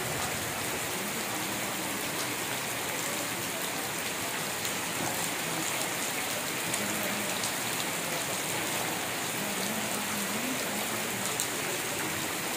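Steady rain falling, an even hiss with scattered drop ticks.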